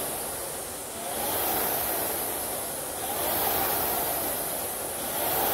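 Wolverson Air Rower's fan flywheel whooshing as it is rowed, the rush of air swelling with each drive stroke about every two seconds.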